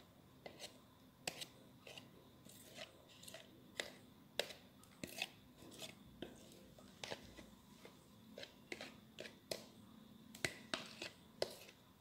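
Faint, irregular soft clicks and taps, one or two a second, as a plastic spoon scrapes watery glue slime out of a plastic cup and it drops onto a plastic plate.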